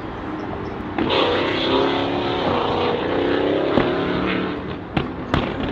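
A car engine revving, loud from about a second in with its pitch rising and falling, then two sharp clicks near the end.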